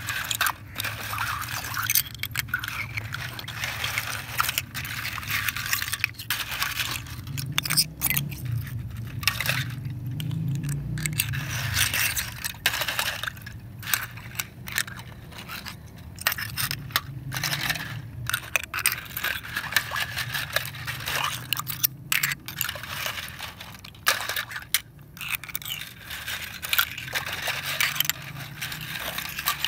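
Wet seashells clinking, rattling and scraping against one another as a hand stirs through a heap of clam and cockle shells in shallow water, a dense run of sharp irregular clicks.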